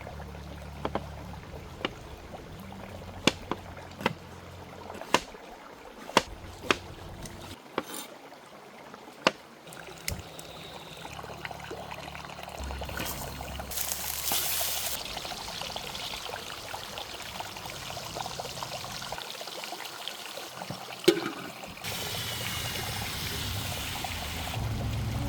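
Liquid pouring and trickling, with about a dozen sharp clicks or knocks in the first ten seconds; the pouring grows louder in the second half, with a single louder knock near the end.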